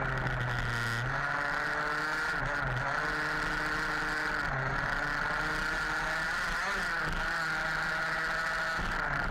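Small two-stroke petrol engine of a 1/5-scale HPI Baja 5B RC buggy, revving up and down repeatedly as the car is driven round the track, heard from a camera mounted on the car.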